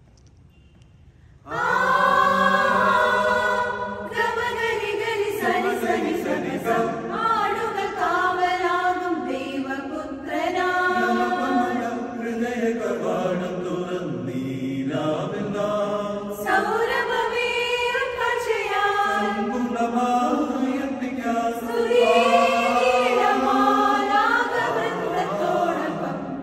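Mixed church choir of women's and men's voices singing a Christmas carol, coming in about a second and a half in after a brief pause and going on in long phrases with short breaks between them.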